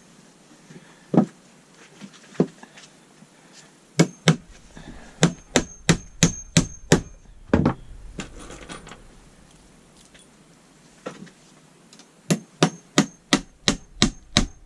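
Hammer driving nails into wooden boards: a few single taps, then two quick runs of strikes at about three a second, some with a short metallic ring.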